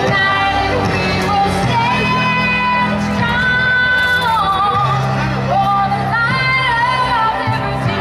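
A woman singing a slow melody with long held, wavering notes over a steady instrumental accompaniment, amplified through stage loudspeakers.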